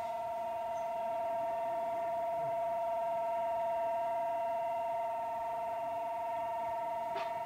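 A steady two-note electronic tone held without a break, with a faint hiss underneath and a light tick near the end.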